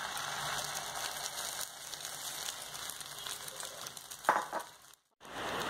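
Beaten egg mixture frying in hot oil on a tawa, with steady sizzling and crackling. There is a short louder noise about four seconds in, and the sound cuts out briefly near the end.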